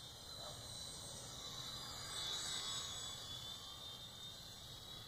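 Faint drone of a radio-controlled model S.E.2a's motor and propeller in flight, growing louder about two seconds in, then fading.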